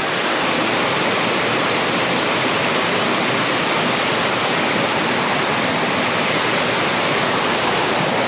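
Mountain creek water rushing steadily, an even, unbroken rush heard close up.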